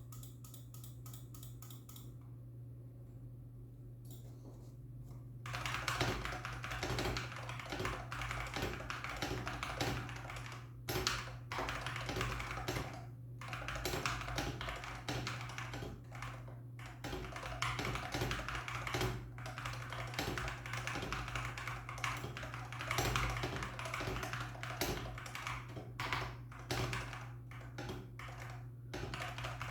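Womier M68 HE Hall-effect gaming keyboard, stock and unmodified, being typed on: a few scattered keystrokes at first, then steady typing from about five seconds in, broken by short pauses. Picked up by a camera microphone, with a steady low hum underneath.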